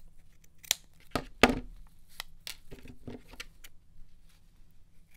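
Scissors snipping through two layers of felt with a paper template on top: a run of short, irregular cuts, the loudest about one and a half seconds in.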